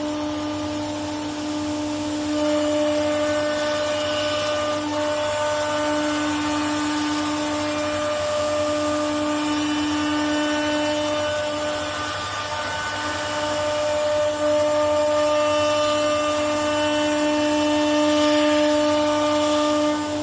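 Automatic-tool-change spindle of a CNC router running with a steady whine while its bit carves a wood panel, with the noise of the cut under it.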